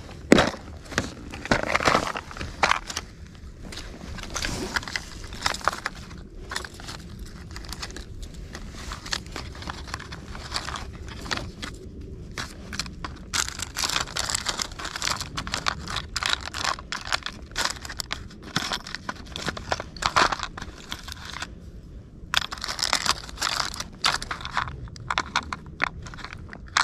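Hands rummaging through a plastic tackle box of packaged fishing lures: irregular rustling and crinkling of plastic packets with light clicks and knocks.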